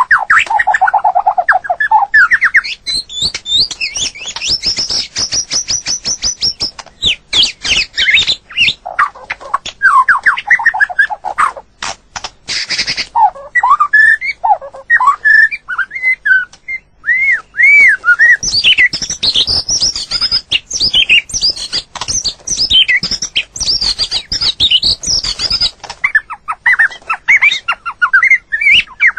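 White-rumped shama singing a long, varied song of loud, rapid whistled phrases that glide up and down in pitch, with runs of quick clicking notes in between.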